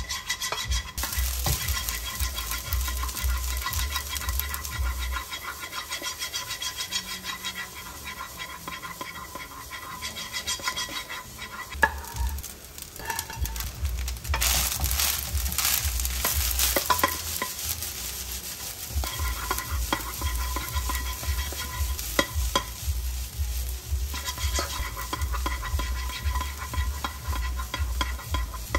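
Spatula stirring and scraping egg fried rice around a hot nonstick frying pan, the rice sizzling. About halfway through the sizzling turns louder for a few seconds as sliced Taiwanese sausage goes into the pan.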